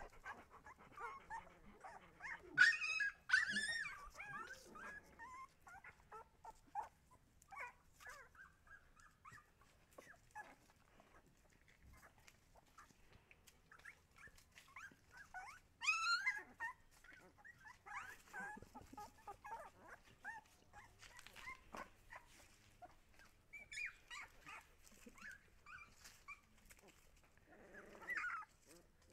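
Husky puppies whimpering and squeaking on and off in short, high-pitched bursts, loudest about three seconds in and again midway through.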